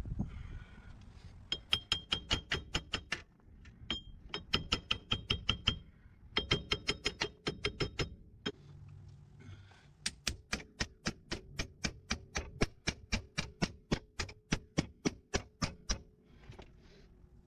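Rapid hammer blows, metal on metal, on the front steering knuckle of a Jeep Cherokee XJ to free the ball joints from it. There are four runs of evenly spaced ringing strikes, the last and longest lasting about six seconds.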